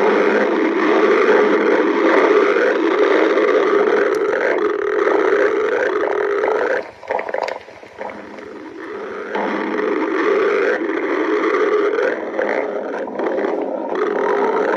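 A woman's empty stomach growling, a loud, drawn-out rumble. It quietens for about two seconds midway, then builds up again.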